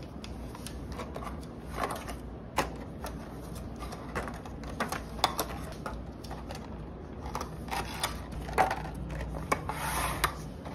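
Clear plastic container lids handled and set down while stickers are peeled and pressed onto them: irregular light clicks, taps and crinkles of thin plastic over a low steady hum.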